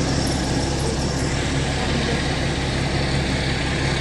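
Fire truck engine idling steadily, a constant low hum.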